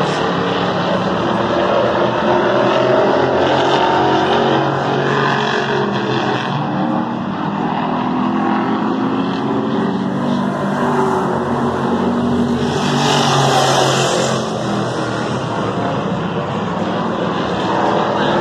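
Engines of a field of super stock race cars running together during a race restart, several engine notes overlapping and rising and falling in pitch. The sound swells loudest about two-thirds of the way through, as cars pass close.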